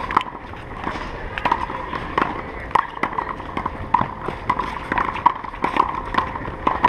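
A one-wall handball rally: a small rubber ball slapped by hand, smacking off the concrete wall and bouncing on the court, with players' quick running footsteps. The sharp smacks come roughly one or two a second.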